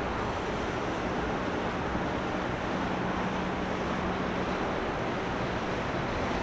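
Steady rushing noise of wind and water from the river traffic, with a boat engine's low hum heard for about two seconds near the middle.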